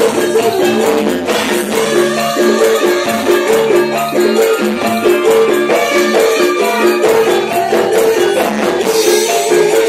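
Javanese gamelan music played live through a PA: metallophones repeat a pattern of pitched notes under a high shimmering percussion, with sinden (female Javanese vocalists) singing into microphones.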